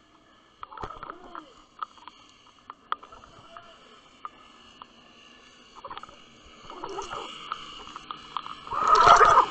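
Underwater sound picked up by a submerged camera: scattered clicks and ticks over a faint steady hum, with a loud rush of noise near the end.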